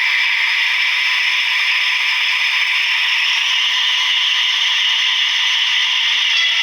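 DCC sound decoder in an HO-scale SNCF BB67000 model locomotive playing the recorded diesel running with its cooling fans switched on, heard through the model's small onboard speaker. A steady rattling hiss, thin and without any low end.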